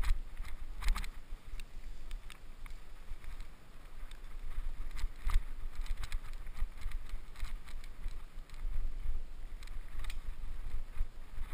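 Mountain bike descending a dirt forest trail: wind rumbling on the helmet camera's microphone, with irregular rattles and clicks from the bike as it rolls over bumps and roots.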